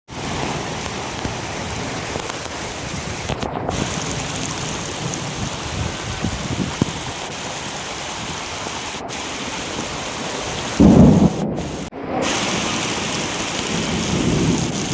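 Steady rain falling, with a brief loud low rumble lasting about a second some eleven seconds in.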